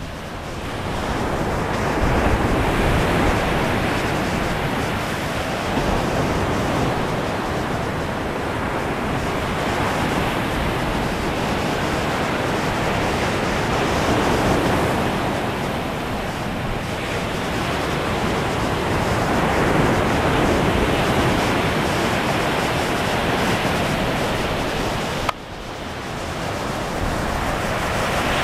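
Ocean surf breaking on a sandy beach, a steady rushing wash that swells and eases every few seconds, with wind rumbling on the microphone. The sound drops suddenly about three-quarters of the way through, then builds back up.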